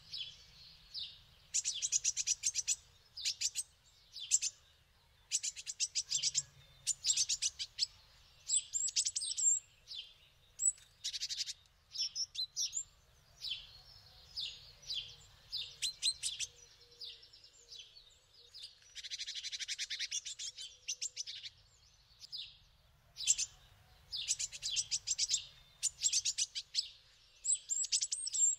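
Small songbirds singing: short, fast trilled phrases repeated one after another with brief gaps, some ending in a high upward note.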